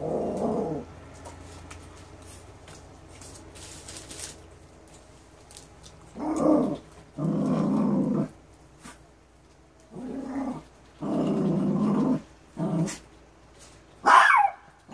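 A pet dog growling and barking in a run of short bursts, each about a second long, spaced out at first and then closer together, with a higher, sharper bark near the end. The owner puts the barking down to the door being left open.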